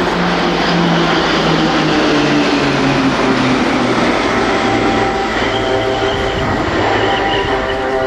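A formation of seven PZL-130 Orlik turboprop trainers flying past. The engine drone falls steadily in pitch as they pass.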